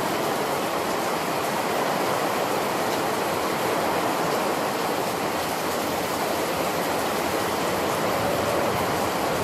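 Heavy rain pouring down, heard from under a fabric canopy: a steady, even hiss that does not let up.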